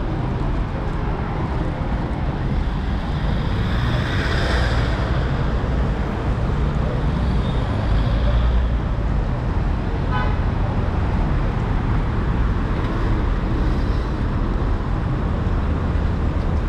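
City street traffic: a steady rumble of cars driving by, with one vehicle passing close about four seconds in and a brief rapid series of clicks about ten seconds in.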